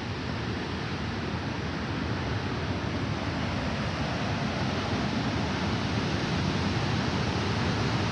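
Waterfall and rushing creek water, a steady, even roar that grows slightly louder as it draws nearer.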